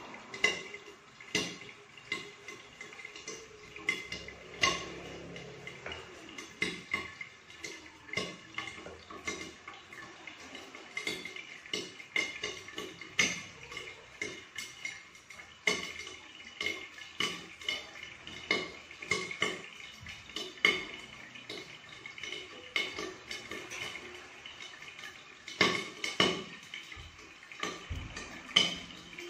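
Kitchen knife tapping and cutting on a wooden cutting board as bananas are peeled and sliced: irregular sharp knocks and clicks, one or two a second, over a faint steady high-pitched hum.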